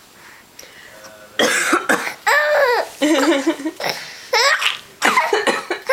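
An adult coughing, answered by a five-month-old baby's high-pitched laughter. The coughs and giggles start about a second and a half in and come in several loud bursts.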